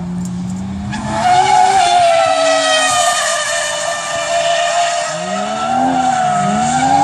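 Drift car sliding sideways through a corner: its tyres screech loudly from about a second in, over the engine running at high revs, which dip and climb again near the end.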